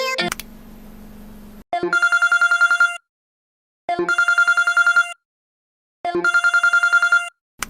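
Telephone bell ringtone: three rapid trilling rings of about a second each, a second apart. A low steady hum comes before them.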